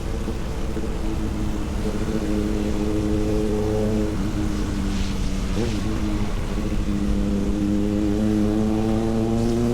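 Vehicle engine running under way over low wind and road rumble; its pitch dips briefly about halfway through, then climbs steadily toward the end as it speeds up.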